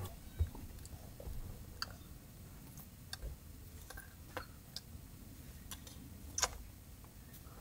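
A scattering of faint, irregular clicks and taps, with a low thump about half a second in and a sharper click a little after six seconds, over a low steady rumble inside a vehicle's cabin.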